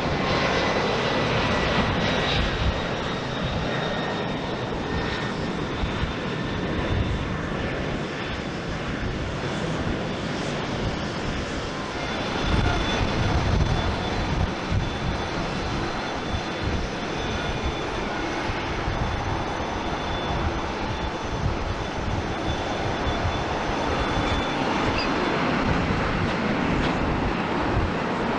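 Jet airliner engines running with a steady noise and a thin high whine: a Boeing 767-300ER, then, after a cut about twelve seconds in, a Boeing 787-9 Dreamliner.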